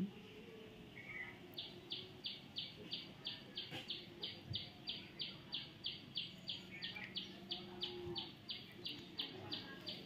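A high, even chirp repeating about three times a second, starting about one and a half seconds in and keeping a steady rhythm, over faint low background sounds.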